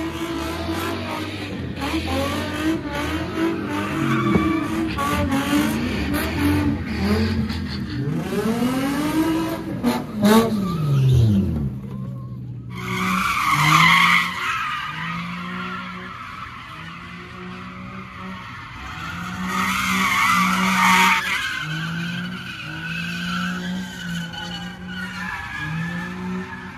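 A car engine revving hard at a street sideshow, its pitch swinging up and down over and over, with tires screeching. After a sudden break about halfway through, the engine is held high in short repeated pulses while the tires squeal loudly twice more.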